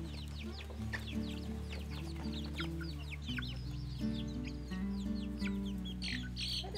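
Young chickens peeping while feeding: many short, falling chirps in quick succession, a few louder ones about six seconds in. Soft background music plays underneath.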